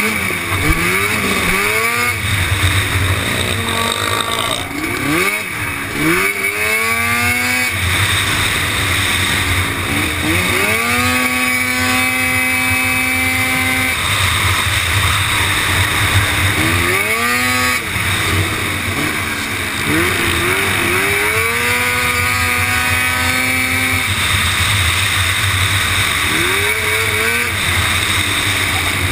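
Racing quad bike's engine heard from onboard at race pace: it climbs in pitch through the gears, holds high revs on the straights, and drops off sharply going into corners, several times over. A steady rush of wind noise runs underneath.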